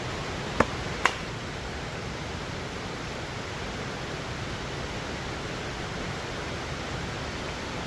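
River water rushing in a steady, even hiss. Two sharp clicks about half a second apart cut through it about a second in.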